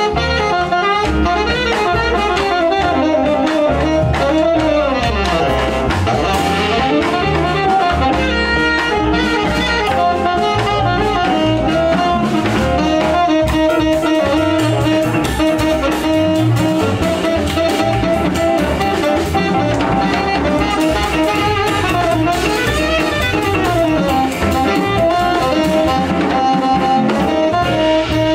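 Live jazz band with a tenor saxophone playing the lead line over plucked double bass and drums.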